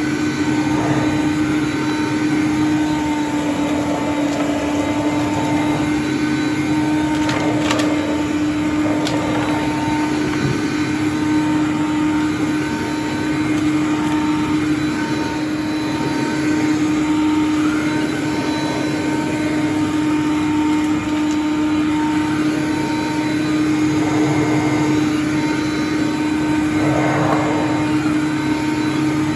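Hoover Conquest upright vacuum cleaner running steadily, its motor giving a constant hum, with a few faint clicks.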